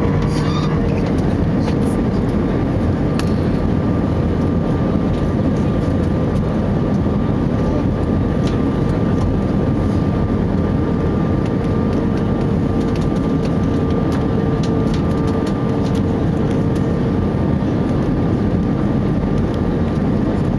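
Steady cabin noise inside an Airbus A320-214 on final approach, heard from a seat over the wing: the rush of air past the fuselage and the hum of its CFM56 engines, with a faint steady whine that fades out near the end.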